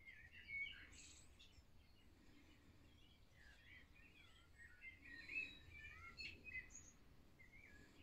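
Faint birdsong: many short chirping notes, with the loudest about half a second in and around five seconds in, over a low, steady background rumble.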